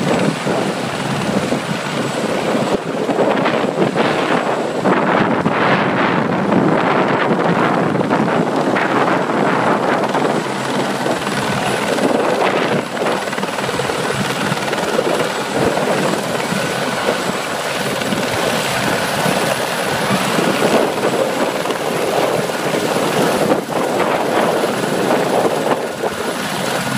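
Helicopter flying in low and setting down close by, its rotor and engine noise loud and steady.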